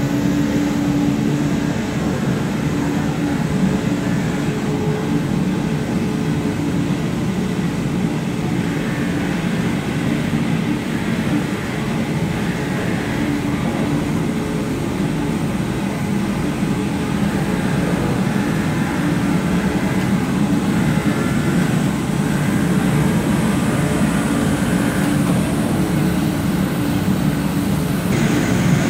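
A machine running steadily with a constant hum. The sound changes slightly near the end.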